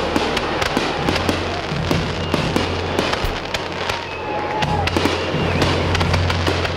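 Fireworks display: many shells bursting close together in quick succession, with continuous crackling.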